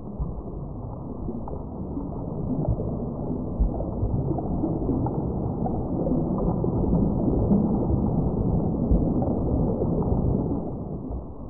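Muffled underwater ambience: a steady low wash of water with scattered small pops, cut off above the low range as if heard under the surface.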